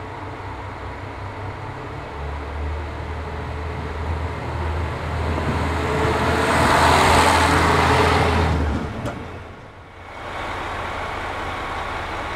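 Diesel railcar's engine running under power, growing louder to a peak about seven seconds in; the engine note stops abruptly around nine seconds and the sound falls away, leaving a steadier hum.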